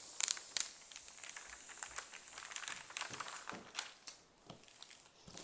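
Clear plastic protective film on a diamond painting canvas crinkling and crackling as hands smooth it flat, pushing out air bubbles; the sharpest crackles come about half a second in.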